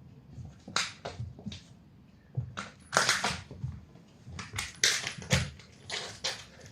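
Kitten at play: about ten short, irregular scratchy rustles and crackles, as claws scrabble and a toy or surface is batted and crumpled.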